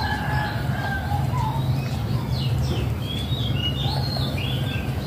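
Small birds chirping, short calls scattered throughout, with a quick run of wavering, twittering notes about three to four seconds in, over a steady low hum.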